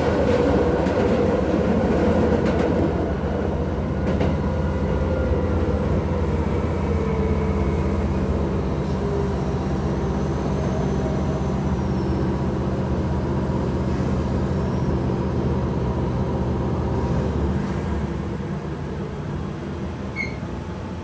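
Keisei 3400-series electric commuter train running: a steady hum with a whine that slowly falls in pitch as the train slows. It grows quieter near the end.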